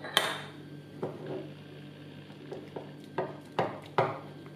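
Metal spoon clinking against glass while stirring icing sugar and milk into a thick glaze: a sharp clink just after the start, then scattered knocks against the glass bowl, closer together near the end. A low steady hum runs underneath.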